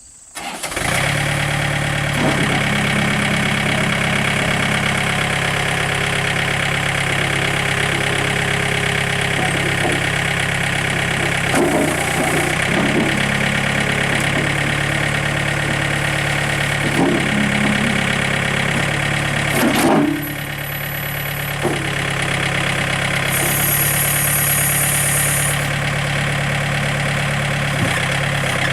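A John Deere 110 tractor loader backhoe's diesel engine running steadily at idle, with a few short knocks and clanks along the way. The loudest clank comes about two-thirds of the way through, and the engine note drops a little after it.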